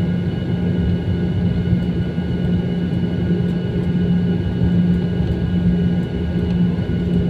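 Airliner jet engines running, a steady loud rumble with a constant low hum and several thin high whining tones.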